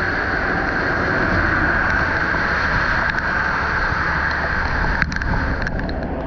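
Floodwater rushing steadily along the curb and pouring into a street drain inlet, with a sharp click about five seconds in.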